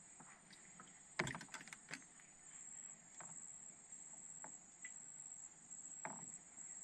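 Small clicks and knocks of fishing tackle handled in a wooden boat as the line is brought in: a quick cluster of clicks about a second in, then a few single ticks spread out, over a faint steady high whine.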